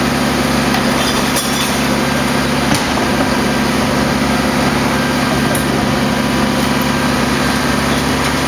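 Rear-loading garbage truck's diesel engine running steadily at idle, with a few sharp knocks as a wheeled trash cart is tipped into the hopper and set back down.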